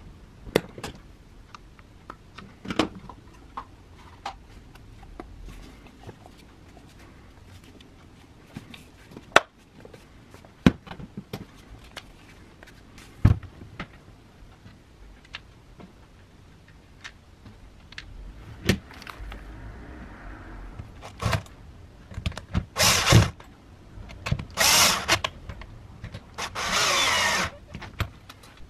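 Clicks and knocks of the grinder's plastic rear housing and brush cover being handled and fitted back together. Near the end come three short loud bursts of a small power tool running, the last about a second long.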